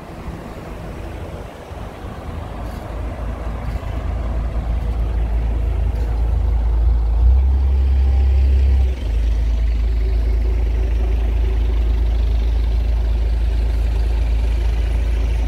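Road traffic: a loud, steady low rumble of cars and a bus going by, building over the first few seconds and briefly louder a little past the middle.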